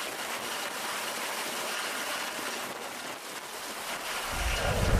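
Steady rushing wind noise of a hovering helicopter's rotor downwash buffeting the microphone, with a deep rumble coming in about four seconds in.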